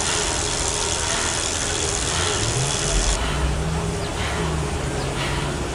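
Direct-drive smart trainer whirring under a rider pedalling hard at around 380 watts, with chain and drivetrain noise over it. About three seconds in, the high hiss drops out, leaving a lower steady hum.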